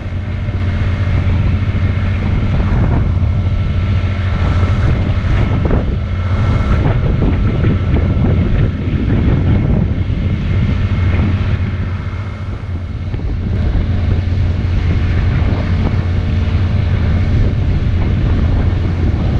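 Small wooden fishing boat's motor running steadily under way, with wind buffeting the microphone and water rushing past the hull.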